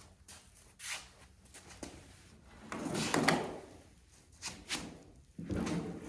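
Sawmill parts being handled and fitted during assembly: a series of scrapes and knocks, with a longer, louder scrape about three seconds in and another near the end.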